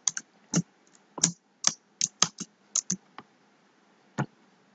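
Computer keyboard keys being tapped: about a dozen short, irregular clicks, with a pause of about a second before the last one.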